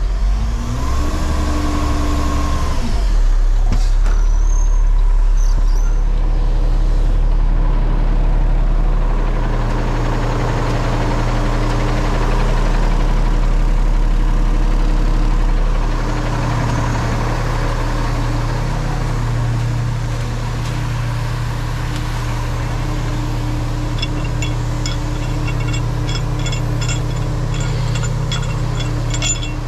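Roll-off garbage truck's diesel engine running steadily. It revs up briefly and back down in the first few seconds. Light clicking comes in near the end.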